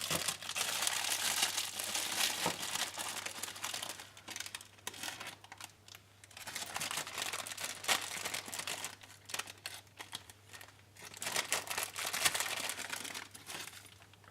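A spoon scraping and mashing butter into peanut butter in a mixing bowl, in three stretches of crackly scraping with short pauses between, over a faint steady hum.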